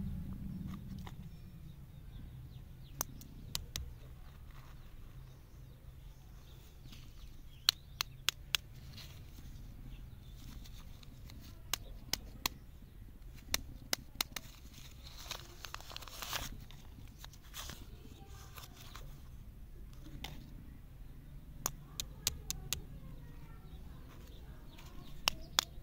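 Plastic lollipop wrappers being handled: scattered sharp clicks and crinkles, with a longer rustle about sixteen seconds in. A low steady hum runs underneath.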